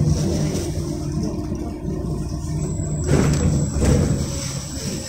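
LiAZ 5292.67 city bus heard from inside the passenger cabin while driving: steady engine hum and road noise, with two brief louder knocks or rattles a little after three seconds in.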